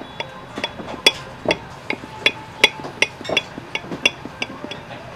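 Metal cutlery clinking and tapping against a glass plate: a quick, irregular run of sharp clinks, about three or four a second, each with a short ringing tone.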